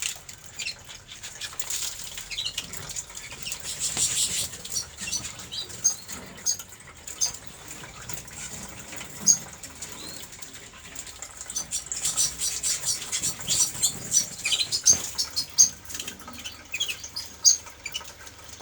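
Canaries fluttering about a flight cage, wings flapping, with many short high chirps scattered throughout and busier in the second half.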